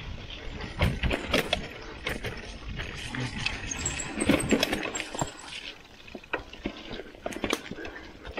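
Mountain bike riding over a rough dirt forest trail: tyres on dirt and roots, with irregular knocks and rattles from the bike over a low rumble, heaviest about a second in and again around four seconds.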